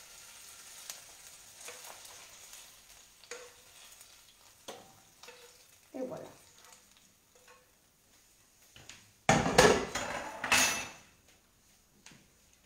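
Utensil scraping and tapping in a frying pan as pieces of fried hake are slid out onto a plate, with a loud clatter of cookware about nine seconds in.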